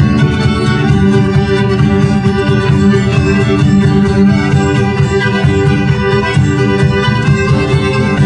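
A folk band playing an instrumental dance tune live, carried by squeezeboxes with a steady sustained reedy sound.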